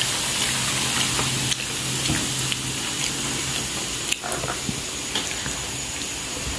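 Kuih siput deep-frying in a wok of hot oil: a steady sizzle with a few faint pops.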